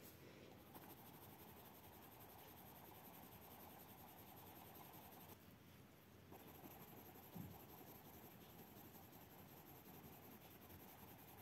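Faint scratching of a white pencil rubbed back and forth over a coloured-pencil layer on paper to blend it, pausing briefly about halfway.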